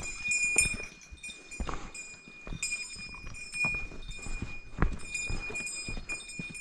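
A small bear bell on a hiker's pack jingling, struck again about once a second in time with walking steps, over the thud and scuff of boots on a dirt trail.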